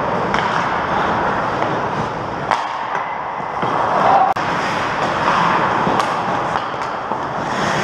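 Hockey skates scraping and carving across rink ice in a steady hiss, with a few sharp clacks of sticks and puck scattered through it.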